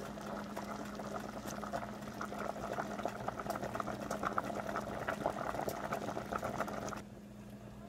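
A stainless stock pot of pinto beans at a rolling boil, bubbling and popping unevenly, with a steady low hum underneath. The bubbling cuts off about seven seconds in.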